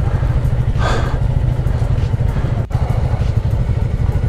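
Royal Enfield Classic 350's single-cylinder engine running steadily at low revs, an even pulsing beat.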